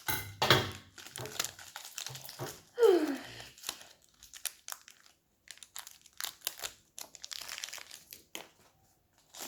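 Plastic toy packaging crinkling and tearing in bursts of short crackles as a blind pack is opened. About three seconds in comes a brief sound falling in pitch, the loudest moment.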